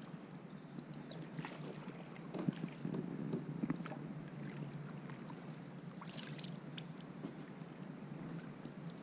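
Paddles dipping into the water beside a small boat, with splashes, drips and light knocks that are loudest about two to four seconds in, over a steady low hum.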